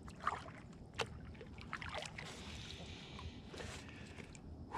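Kayak paddling: the paddle working the water with splashing and dripping, and two sharp knocks in the first second followed by a few lighter clicks.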